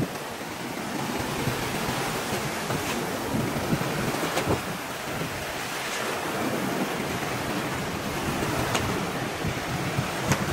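Small surf breaking and washing up over sand at the shoreline, heard close: a continuous rushing, fizzing wash that swells and ebbs with each wave.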